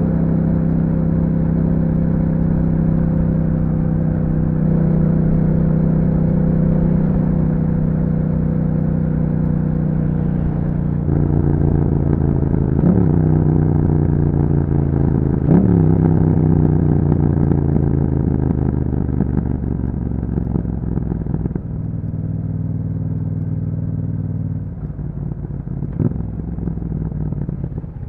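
2021 Yamaha MT-07's 689 cc parallel-twin engine running through an Akrapovic exhaust with dB killer while riding. It holds a steady pitch, gets louder about a third of the way in, and gives two quick rev swoops about halfway. It then eases off in two steps as the bike slows near the end.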